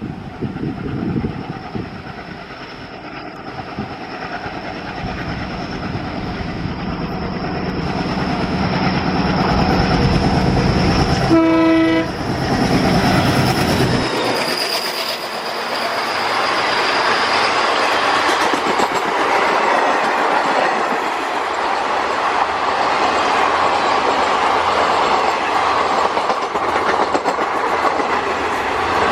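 A WDG3A diesel locomotive approaches, its engine chugging and growing louder, and gives one short horn blast partway through. The engine sound then falls away as the coaches run past with a steady clatter of wheels on the rails.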